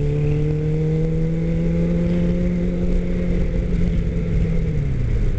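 Suzuki Katana 600's inline-four engine pulling in gear while riding, its pitch climbing slowly, then dropping near the end, with low wind rumble.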